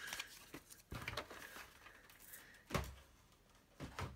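A few faint knocks and rustles of paper and a paper trimmer being handled on a tabletop, the loudest knock a little under three seconds in.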